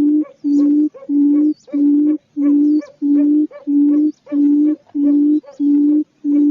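Quail calling: a low, steady hoot repeated about twice a second in an even rhythm, with faint high chirps about once a second above it.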